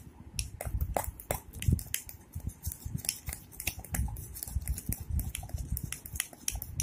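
A metal fork whisking cake batter in a ceramic mug, clicking against the inside of the mug in quick, irregular strokes, with dull low knocks underneath.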